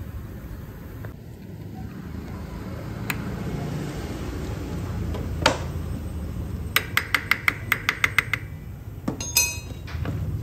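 Steel hand tools clicking and clinking on a motorcycle's exposed clutch assembly: a sharp clink about five seconds in, then a quick, even run of about a dozen metallic clicks, and a rattle of clinks near the end, over a steady low background rumble.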